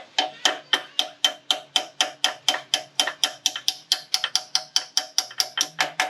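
A rapid, even run of sharp clicks or taps, about four a second, each with the same ringing pitch, that stops suddenly at the end.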